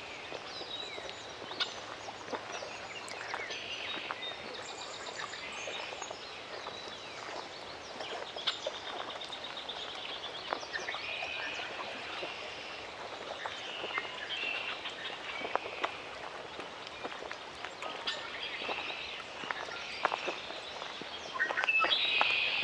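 Outdoor lakeside ambience: many small birds chirping, calling and trilling over a soft steady background, with scattered short clicks. Near the end the bird calls grow louder and busier.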